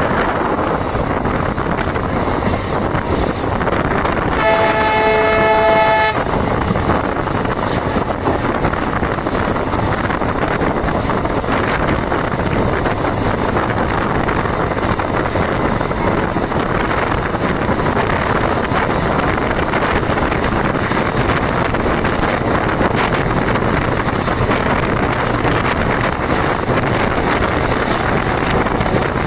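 EMD WDG4 diesel locomotive with its two-stroke V16 engine running loud and steady, together with the rumble of the train. About four seconds in, its chord-toned horn sounds once for nearly two seconds.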